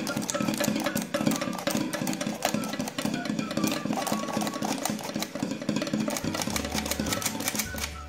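Electric hand mixer running steadily as it beats pancake batter in a bowl, stopping abruptly right at the end.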